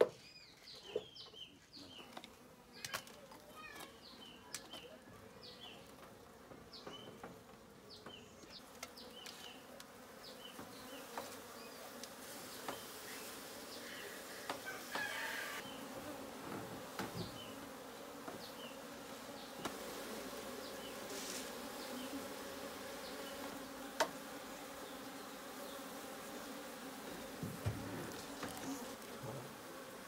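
Honey bees buzzing around an opened traditional log hive as the comb is cut out, a steady hum that grows after the first several seconds, with a few sharp knocks. Birds chirp over the first several seconds.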